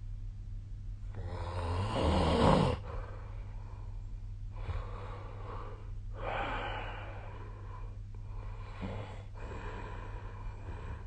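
A person snoring in their sleep: three noisy breaths about four seconds apart, the first and loudest about two seconds in. A steady low hum runs underneath.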